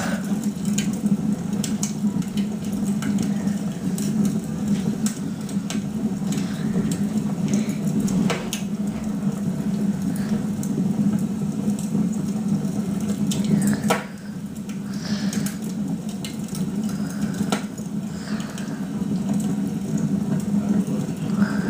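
Wood fire crackling and popping, heard through a television's speaker: irregular sharp pops over a steady low rumble, with a louder pop about fourteen seconds in.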